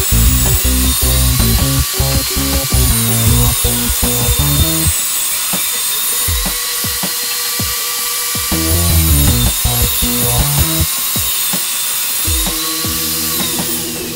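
Table saw running and ripping plywood, its whine dipping in pitch several times as the wood is fed into the blade, under blues-style background music.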